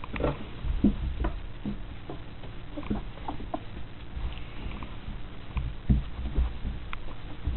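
Three-week-old Austrian Pinscher puppies making small squeaks and grunts while scrabbling on soft blankets. Several low bumps come through, the loudest about a second in and about six seconds in.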